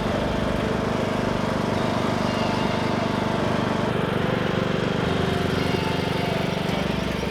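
Lawn tractor engine running steadily as the tractor drives along.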